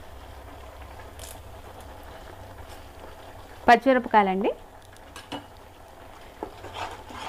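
Tomato paste with curry leaves frying in oil and ghee in a pan: a steady sizzle, with a spoon stirring and knocking lightly against the pan a few times.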